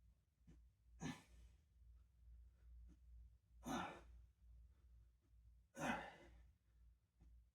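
A man breathing hard from exertion: three heavy, audible exhalations, about two to three seconds apart.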